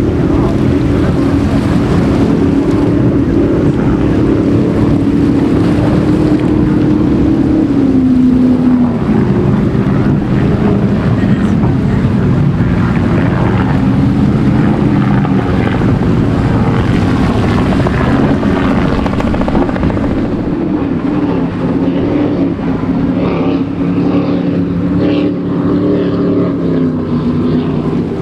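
Racing powerboat engines running at high speed: a loud, steady droning note that sags in pitch about eight seconds in, then holds.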